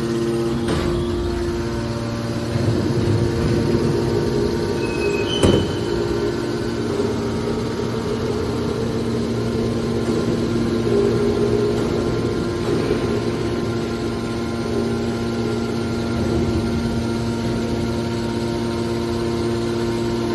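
Aluminium can baler press running with a steady motor and pump hum, joined by rougher grinding noise from about two seconds in, and one sharp metallic clank about five seconds in.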